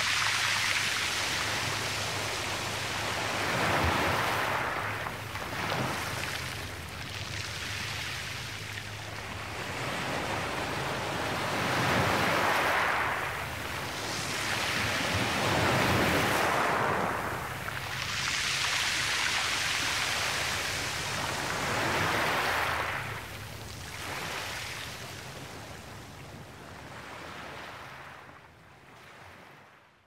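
Small waves breaking and washing up a stony beach. The surf swells and ebbs every few seconds, then fades out near the end.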